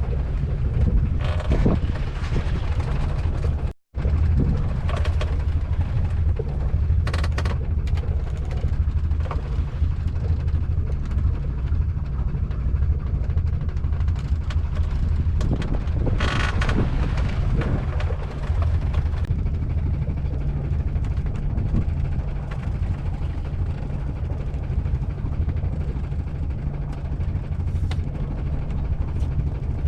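Fishing boat's engine running steadily with a low hum, with wind and water noise over it; the sound drops out for an instant about four seconds in.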